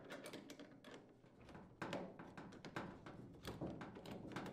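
Faint, irregular clicks and small metallic knocks of a screwdriver turning the screw of a hose clamp on a metal dryer vent elbow, as the duct is handled.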